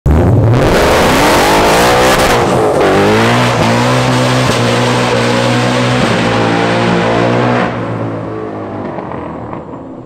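Car engine revving hard under load. Its pitch climbs, drops sharply about three seconds in, then holds steady at high revs before fading out over the last couple of seconds.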